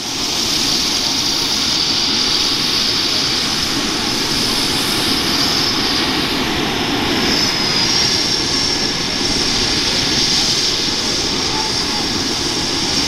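Airbus EC135 helicopter's twin turboshaft engines running on the ground before take-off: a steady high turbine whine over a rushing noise, the whine shifting slightly higher about halfway through.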